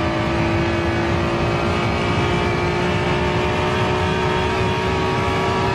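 Honda NSX's V6 engine pulling hard under steady full throttle in one gear, heard from inside the cabin, its note rising slowly and evenly as the revs climb.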